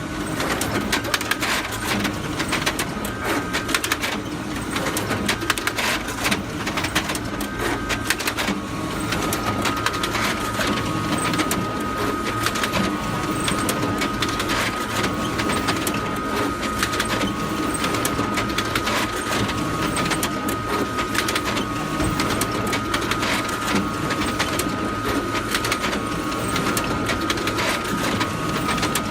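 Photocopier running continuously: a steady mechanical churn with rapid clicking and a repeating rhythm, joined about nine seconds in by a steady high whine.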